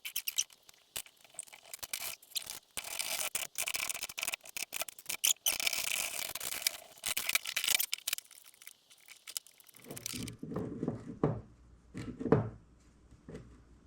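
Rapid scratchy clicking and scraping of a clamp being worked down on a rifle scope tube to bend it straight. About ten seconds in this gives way to a few dull knocks, the loudest about two seconds later.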